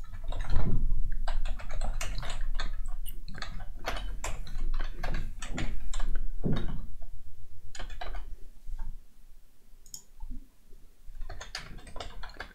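Computer keyboard typing: quick runs of keystrokes that thin out to a few scattered keys after about eight seconds, then pick up again near the end.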